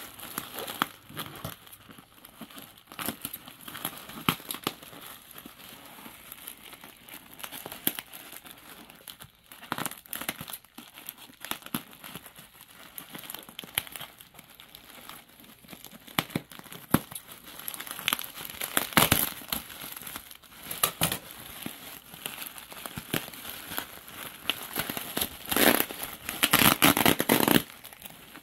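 Bubble wrap and plastic packing crinkling and rustling as hands unwrap it and cut it open with scissors. The crackling comes in uneven bursts and is loudest about two-thirds in and again near the end.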